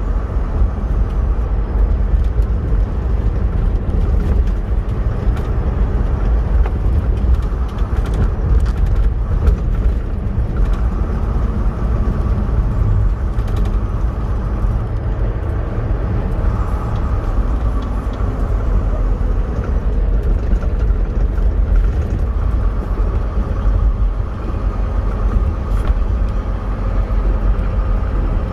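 Steady low rumble of a semi-truck's engine and tyres on the road while driving at a constant pace.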